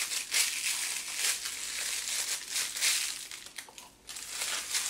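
Thin plastic piping bag filled with icing crinkling and rustling in irregular bursts as it is twisted closed and handled; the rustling dies down about three and a half seconds in, then briefly resumes.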